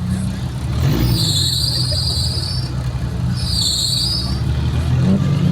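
Off-road 4x4 engine running at low revs, with two high-pitched squeals over it, the first about a second in and the second just after the middle.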